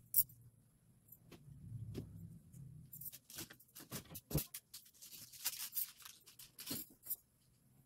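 Rummaging through clothes and things in a closet: a string of clicks and knocks with rustling, busiest in the second half.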